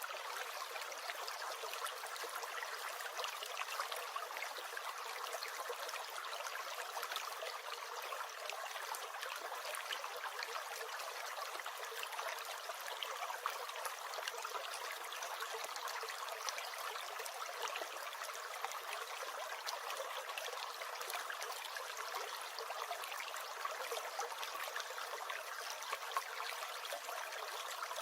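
A small stream gurgling and trickling steadily over stones, with fine splashes and no deep rumble.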